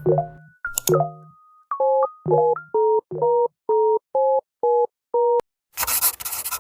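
Electronic background music: short synth notes, then a string of evenly spaced two-tone synth beeps, about two a second, like a telephone busy signal, then a burst of noisy sound near the end.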